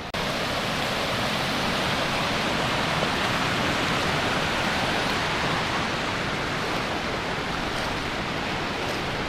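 Rushing water of a large waterfall, a steady, even rush of noise that starts abruptly just after a brief dropout.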